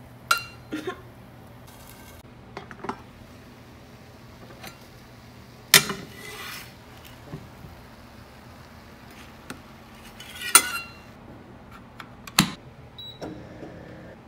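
A metal spatula knocking and scraping against a nonstick frying pan while a tortilla wrap is pressed and lifted: about half a dozen sharp metallic clanks with a brief ring, the loudest about six, ten and a half and twelve seconds in, over a steady low hum.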